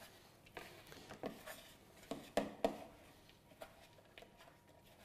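Faint handling noises: scattered soft knocks and rustles as dough is worked by hand in a glass bowl on a marble counter, with the most distinct knocks about two and a half seconds in.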